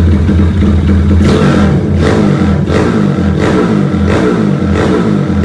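Tuned motorcycle engine with oversized 34/29 mm valves running hard, then from about a second in blipped on the throttle six times in quick succession, about one rev every 0.7 seconds.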